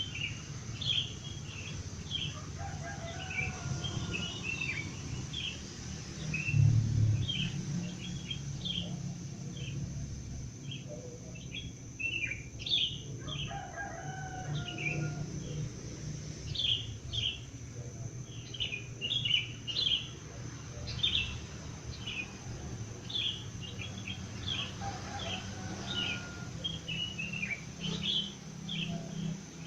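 Dawn birdsong: small birds chirping in short, quick phrases again and again, with a rooster crowing now and then in the background. A low steady hum runs underneath and swells briefly about seven seconds in.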